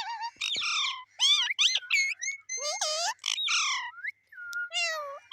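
Pet parrot calling: a quick run of whistled, squawky calls that glide up and down in pitch, with a short pause a little after the middle.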